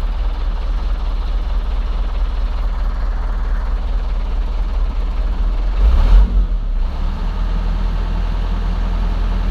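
Steady low engine rumble like a heavy diesel idling, with a brief louder surge about six seconds in.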